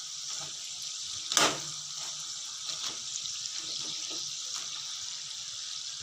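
Gram-flour and rice-flour dough deep-frying in hot oil: a steady sizzle with faint small crackles, and one sharp knock about a second and a half in.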